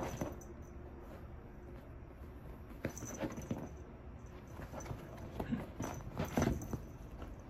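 A kitten's paws and claws scrabbling and scuffing on a leather armchair as it climbs about, in irregular soft taps and scrapes, the loudest a little after six seconds in.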